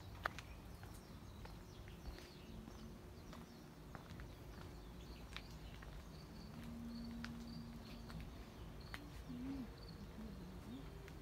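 Faint outdoor ambience: scattered light clicks and short, soft bird calls, with a few low gliding calls near the end.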